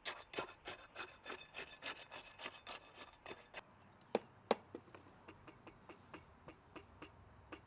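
Steel tamping rod stroked repeatedly into fresh concrete in a steel air-meter bowl, rodding the sample for an air-content test: a quick, even run of short scraping strokes, about three and a half a second, for some three and a half seconds. Then two sharp knocks and a series of fainter regular clicks.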